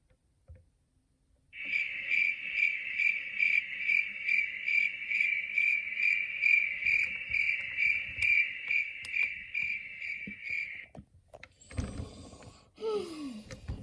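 Cricket chirping: a steady, high-pitched pulsing trill of about three pulses a second that starts after a second and a half and stops about eleven seconds in. Near the end there is a short rustle and a brief falling sound.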